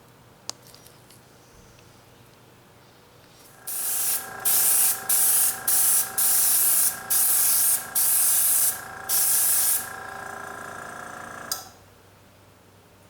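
Airbrush spraying Duracoat firearm finish in about eight short, loud hissing bursts, with a small air compressor humming steadily underneath. The compressor starts a few seconds in and shuts off with a click near the end.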